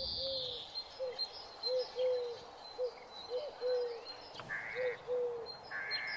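Birds calling: about ten short, low notes, each rising and falling, at irregular intervals, over faint high chirps.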